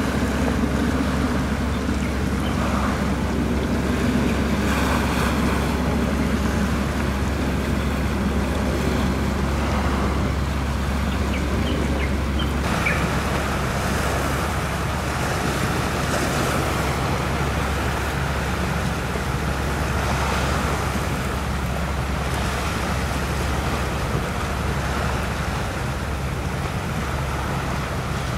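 Wind buffeting the microphone over the sea, with the wash of waves and a steady low rumble underneath.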